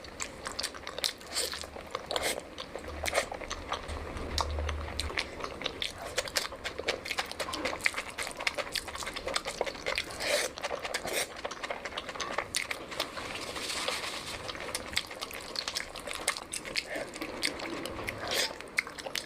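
Close-miked eating: chewing and biting, with many irregular crunchy clicks.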